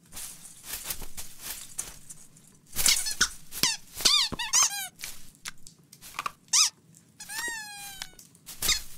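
Cartoon sound effects of a cat clambering in a Christmas tree: the fir branches rustle, then a quick run of short high squeaks that rise and fall, with a few knocks, and near the end a squeaky whine that slides down in pitch.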